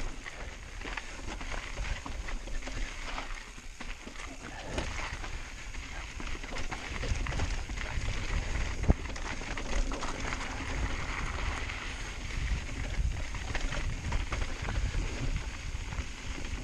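Mountain bike descending rocky dirt singletrack: tyres crunching over gravel and rock, with the bike rattling and clattering over bumps and a steady low rumble of wind on the chin-mounted camera. A single sharp knock comes about nine seconds in.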